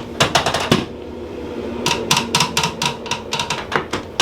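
Handheld chiropractic adjusting instrument tapping over the hip joint: quick runs of sharp mechanical clicks, about five a second, with a pause of about a second between two runs.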